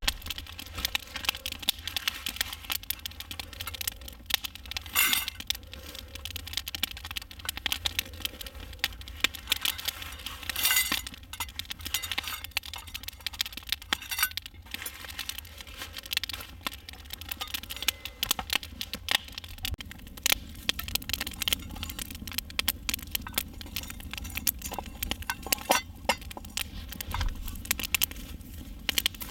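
Wood campfire crackling, a steady run of sharp snaps and pops, with a few louder cracks along the way.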